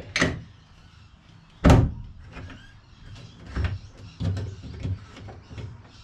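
White plastic floor access hatch being worked by hand, its lid and latch clicking and knocking: one loud snap about two seconds in, then several lighter clicks.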